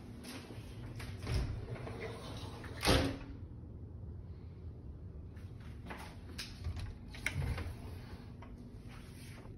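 An interior closet door being opened and handled: a few knocks and clicks, with one louder knock about three seconds in.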